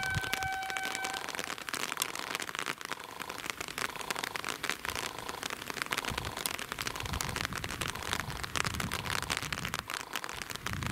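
Level-crossing warning bell ringing continuously, a dense crackly ringing with a tone that pulses on and off. In the second half a car's engine rumbles low underneath as it pulls up to the closed barrier.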